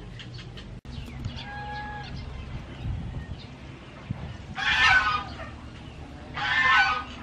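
A chicken calls twice, each call loud and under a second long, about a second and a half apart. A faint short call comes earlier.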